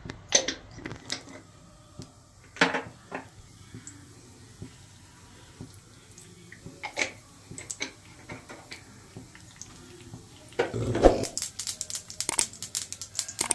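Scattered clinks and taps of kitchen utensils against metal pots and a cast-iron tawa, with a louder clatter about eleven seconds in. Near the end, the hot oil in the tawa starts to crackle as urad dal and mustard seeds fry.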